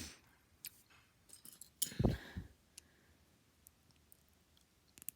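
Small plastic Lego pieces being handled and fitted together: scattered faint clicks, a duller knock about two seconds in, and a quick run of sharper clicks near the end.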